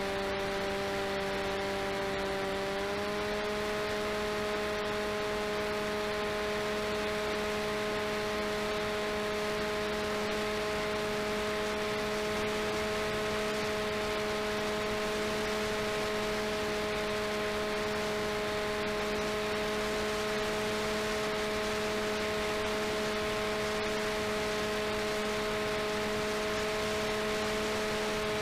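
RCTimer 5010 630KV brushless motor on 4S spinning the delta wing's propeller in cruise: a steady whine with several overtones over a rushing air hiss on the onboard camera's microphone. About three seconds in, the pitch steps up slightly as the motor speeds up, then holds steady.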